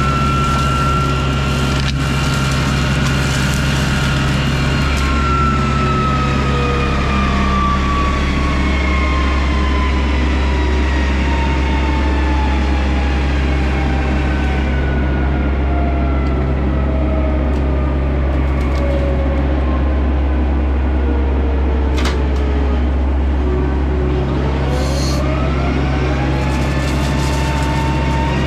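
John Deere 60G compact excavator's diesel engine running steadily under load while its hydraulic Baumalight brush mulcher whines. The whine sinks slowly in pitch for most of the time as the mulcher head is loaded down in the brush, then climbs quickly back up near the end as it recovers speed.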